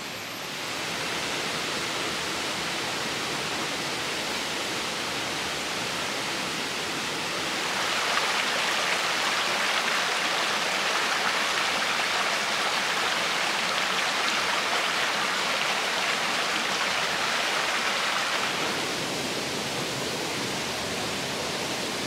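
Shallow mountain stream rushing over rocks, a steady hiss of running water that grows louder about eight seconds in and drops back near the end.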